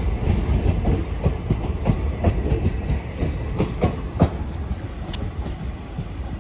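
Train wheels clattering over rail joints as carriages roll past, a steady rumble broken by sharp clicks, easing off after about four seconds.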